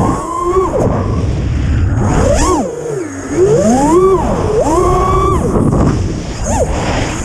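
The brushless motors and 5-inch props of a 7-inch FPV quadcopter whine, the pitch climbing and dropping steeply several times as the throttle is punched and chopped. Wind rushes over the onboard camera's microphone underneath.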